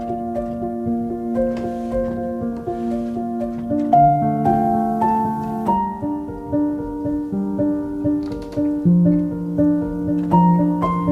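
Background piano music: a slow melody of single notes over held chords.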